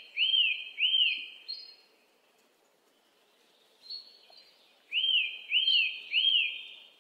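Bird-like chirps: three quick high chirps, each rising then falling, then a pause, then three more identical chirps about five seconds in.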